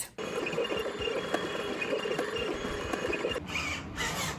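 Small desktop 3D printer (Turnigy Fabrikator II Mini) running, its stepper motors whirring in short, shifting tones as the print head moves. About three and a half seconds in, a hissier sound takes over, pulsing about twice a second.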